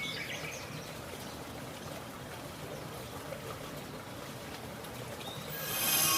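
Steady rushing noise of running water, with a few faint high chirps near the start. About a second from the end, a louder ringing sound made of many high tones comes in.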